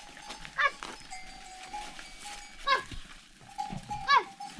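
Flock animals bleating, three quavering calls about a second and a half apart, over a faint steady tone.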